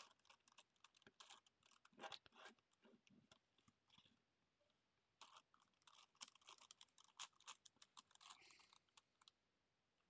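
Gigaminx twisty puzzle being turned by hand: a faint, irregular run of plastic clicks and clacks as its layers are twisted, with a brief lull about four seconds in.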